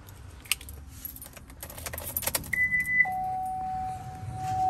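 Keys jangling and clicking, then a short high beep about two and a half seconds in. Half a second later a lower continuous beep starts and holds steady: the Chevrolet S10's reverse parking-sensor warning, sounding because the gear selector was left out of Park.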